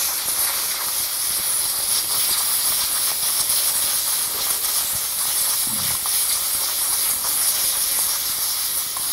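Air hissing steadily out of the inner tube of a worn Heidenau K28 motorcycle tire as the tire is pressed down to deflate it.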